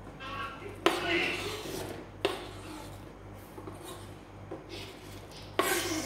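Kitchen knife knocking and scraping on a plastic cutting board as diced tomatoes are gathered: a sharp knock about a second in and another just after two seconds, each followed by a rasping scrape, and a louder scrape near the end as the tomatoes are pushed off the board.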